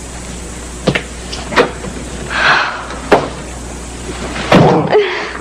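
A room door being opened and shut: a few light knocks, then a louder thump about four and a half seconds in.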